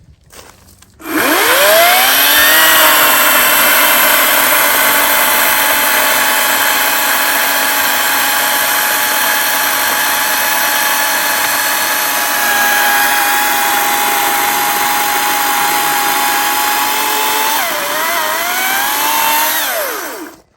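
Echo 58V battery chainsaw's electric motor spinning up about a second in with a rising whine, then running at a steady high pitch as it cuts through a log. Near the end the pitch wobbles and dips, then the whine falls away and stops as the saw is released.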